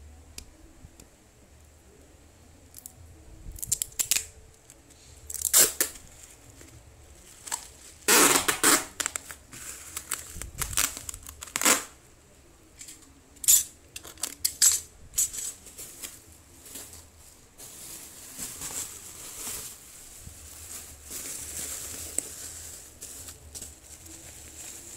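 Brown packing tape pulled off the roll in several sharp, ripping pulls, the longest about eight seconds in, and pressed onto bubble wrap. From about two-thirds of the way through, a softer steady crinkling of plastic bubble wrap being handled.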